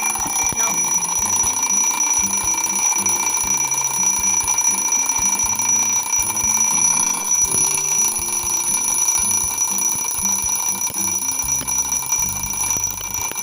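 Analog alarm clock ringing continuously at a steady level, set off by setting its alarm hand to the current hour and switching the alarm on.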